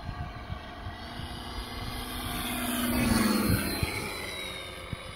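RC model P-47 flying past low, its onboard Mr RC Sound 4.1 system playing a simulated aircraft engine sound through transducers, along with the model's propeller. The sound swells to its loudest about three seconds in, then drops in pitch and fades as the plane passes.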